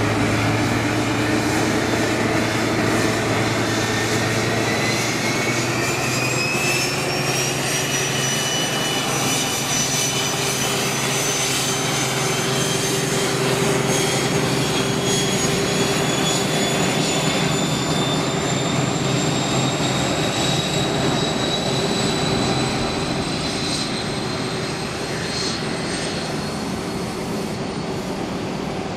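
Class 43 High Speed Train diesel power car pulling away, its engine working hard. A high turbocharger whine rises in pitch over the first several seconds, then keeps climbing slowly as the train gathers speed.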